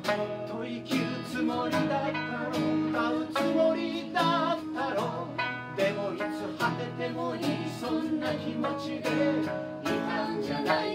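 Small acoustic band playing live: a strummed acoustic guitar keeping a steady beat, with a sanshin (Okinawan three-string lute) and an accordion.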